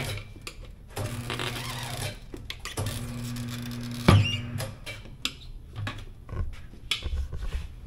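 K&L tire changer's electric turntable motor humming in short runs of about a second, stopping and starting, as a motorcycle tire is worked onto its wheel. A loud clunk about four seconds in, then scattered clicks and knocks of tire and tools.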